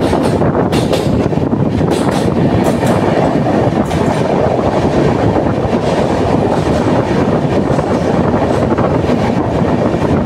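Ara–Ranchi Express passenger train heard from on board, running at speed: steady, loud wheel-and-rail running noise with sharp clicks of the wheels over rail joints in the first few seconds, settling into an even, unbroken rumble once inside the tunnel.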